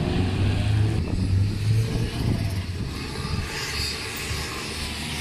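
Classic rally car's engine revving as the car drives through a roundabout, its pitch wavering up and down.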